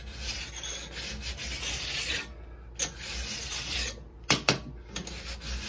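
A flat file held in a jig rasps metal-on-metal along a chainsaw bar's rails in three long strokes, dressing the worn, uneven rails level and square. Two sharp knocks come about four seconds in.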